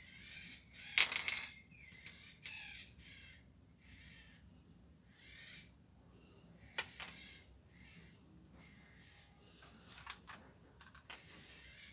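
Metallic clinking from a handled spray paint can, loudest in a short burst about a second in, with single sharp clicks later and repeated short soft rustles between them.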